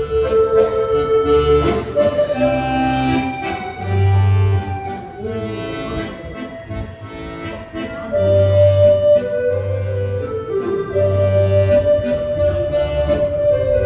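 Instrumental music: a slow accordion melody of long held notes over a repeating bass line, with no singing.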